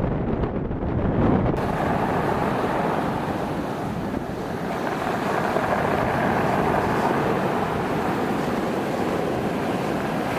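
Storm wind blowing hard across the microphone, a steady rushing noise. About a second and a half in it suddenly turns brighter and hissier.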